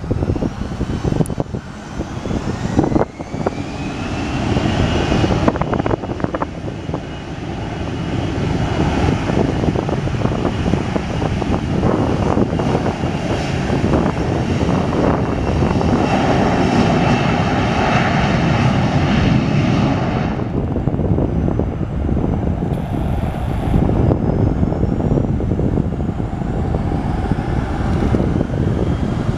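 Airbus A321-200 jet airliner's twin turbofan engines spooling up with a rising whine, then running loud and steady at takeoff thrust through the takeoff roll and climb-out. The higher part of the sound falls away about two-thirds of the way through as the jet climbs off, leaving a low rumble.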